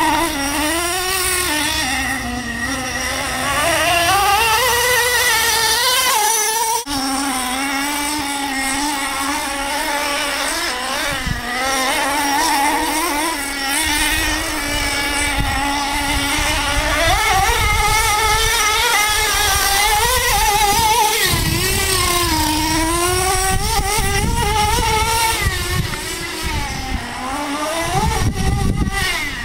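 Traxxas Slayer Pro's TRX 3.3 nitro engine running hard as the RC truck laps the track. Its high buzzing pitch climbs and falls again and again as the throttle opens and closes, with a brief break about seven seconds in.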